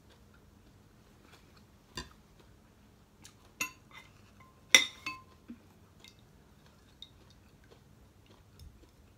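Metal spoon clinking against a ceramic soup bowl and plate while eating: several short, sharp clinks at uneven intervals, the loudest about halfway through with a brief ring.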